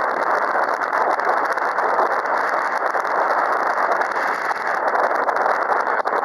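Heavy wind buffeting the microphone: a steady, loud rushing noise with no clear tone in it.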